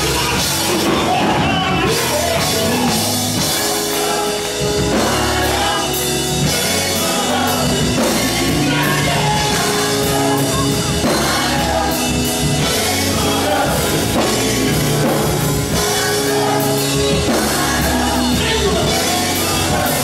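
Live gospel band: a male lead singer on a microphone over electric bass, guitar and a drum kit, playing continuously.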